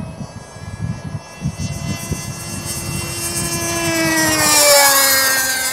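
Small RC speed plane's engine and propeller whining at full speed on a fast pass. It grows louder toward the pass about four seconds in, then its pitch drops as it goes by, the Doppler shift from which the speed app reads about 108 mph.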